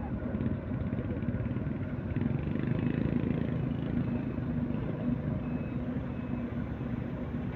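Heavy diesel engine running steadily with a low hum.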